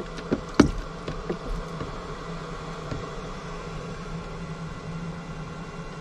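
An immersion heater is stirred around in a plastic water tank, knocking against the tank a few times in the first second and a half. A steady electric buzzing hum carries on underneath.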